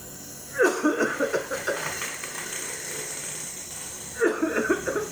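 A man coughing in two bouts, the first about half a second in and the second about four seconds in, with a steady hiss between them: deliberate coughing during a nebulizer treatment to loosen and bring up thick phlegm.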